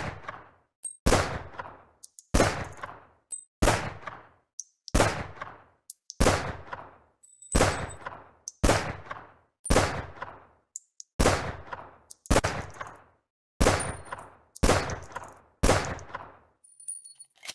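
A light firearm firing single shots at a steady pace, about one every 1.2 seconds, each crack followed by a short fading echo. Faint high pings sound between the shots, and a few light clicks come near the end.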